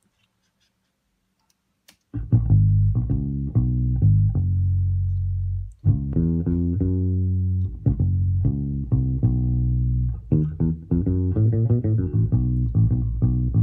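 Recorded playback of an American Standard fretless electric bass, muted with a sock under the strings, playing a Motown-style bass line on its own. The bass comes in about two seconds in with short, plucked notes and some longer held ones.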